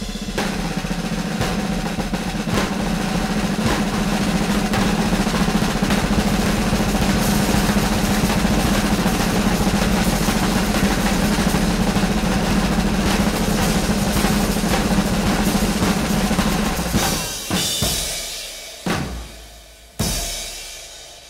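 Music with a busy drum kit. The steady playing breaks off about 17 seconds in, and the piece ends on three separate hits that ring out and fade.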